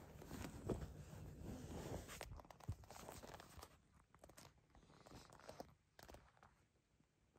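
Faint rustling with a few light clicks, dying down after about two seconds to near silence with only the odd tick.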